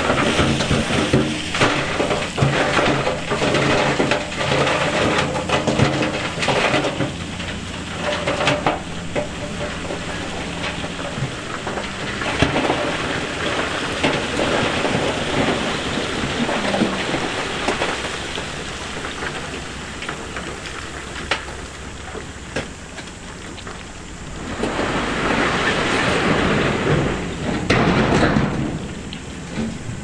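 A heavy earthmoving machine's diesel engine running while loose stone tumbles and rattles, with many sharp knocks of rock on rock. A second heavy surge of tumbling rock comes near the end.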